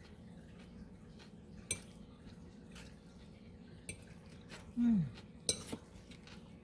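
Metal fork tossing salad in a glass bowl: soft stirring with three sharp clinks of the fork against the glass. Loudest is a short low sound falling in pitch about five seconds in.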